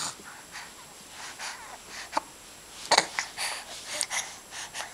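A baby eating puréed squash off a spoon: soft breathing and a few short, wet mouth smacks and clicks, the sharpest about three seconds in.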